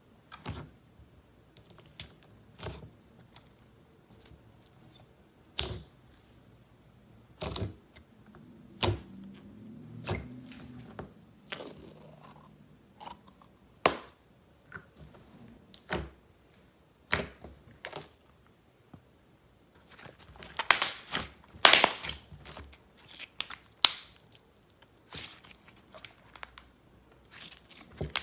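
Slime being handled, making irregular sharp clicks and pops about every second or two, with a denser run of crackling about twenty seconds in.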